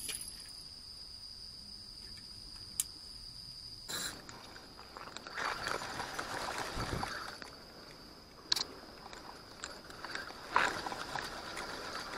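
Handling noise as an angler takes up the rod and sets the hook on a bite: rustling and scraping from about four seconds in, a dull thump about halfway through, and a few sharp clicks later. A steady high-pitched tone runs underneath.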